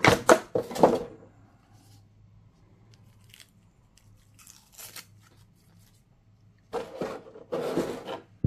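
Packaging being handled and pulled away from the unit as it is unboxed: crackling, crunching rustles in two spells, one during the first second and one near the end, with only faint ticks between.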